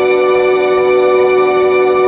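Background music: guitar chords held steady, with no beat.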